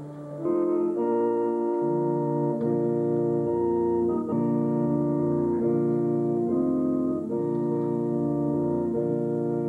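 Organ music: held, sustained chords that change about once a second, swelling louder about half a second in.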